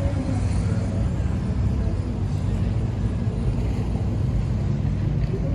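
Steady low engine rumble of river boat traffic, with a faint even drone in it.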